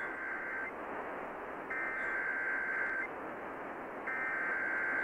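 Emergency Alert System SAME header data bursts heard over a hissy radio signal. A burst ends just after the start, and two more follow, each about a second and a half long and about a second apart, a buzzy two-tone signal. They encode the start of a new alert.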